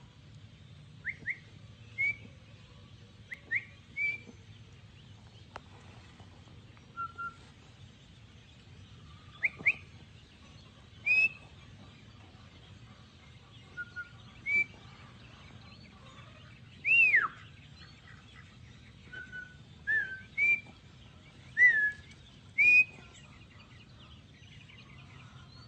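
Ducklings peeping: scattered short, high chirps, some rising and some falling in pitch, coming every second or two.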